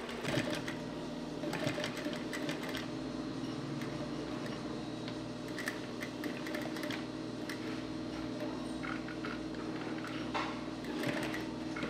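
Electric sewing machine running steadily, a continuous hum with small clicks, as the wallet is stitched.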